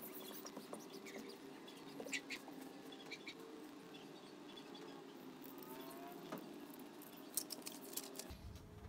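Faint rubbing, scratching and crinkling of a vinyl sticker being pressed down onto a painted metal cover and its transfer tape peeled away, in scattered short scrapes and clicks. A quiet steady drone of a few held tones sits underneath.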